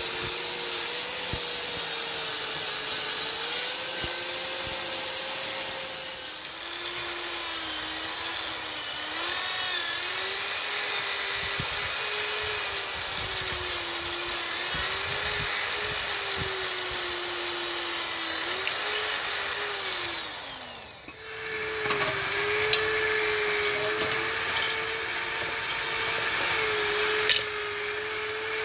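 Small electric power tools working wood. An angle grinder sands a wooden sheath for the first few seconds, then a handheld electric drill bores into a wooden knife handle, its motor pitch wavering under load. Near two-thirds through the motor winds down, then starts up again.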